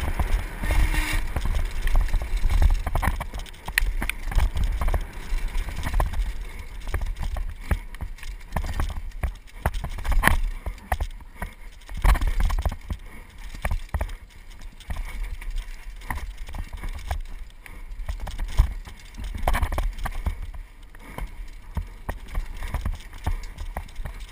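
Mountain bike descending a rough dirt trail: the bike rattles and knocks irregularly over the bumps, with a constant low rumble of tyres and wind.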